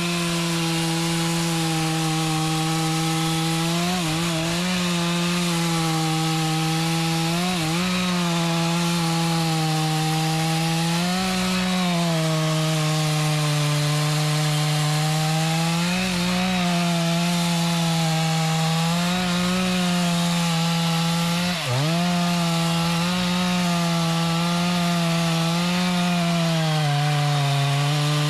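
Chainsaw running at full throttle while cutting mahogany wood, its engine pitch dipping briefly several times as the chain loads up in the cut, most deeply about three quarters of the way through.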